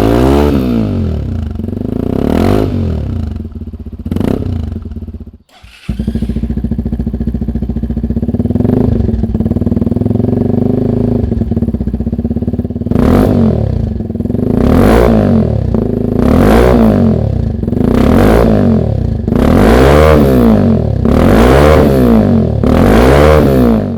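Sinnis Terrain 125cc motorcycle engine revved in repeated throttle blips, its pitch rising and falling back each time. It cuts out briefly about five and a half seconds in, runs steadily for several seconds, then is blipped again and again about once every second or so until the end.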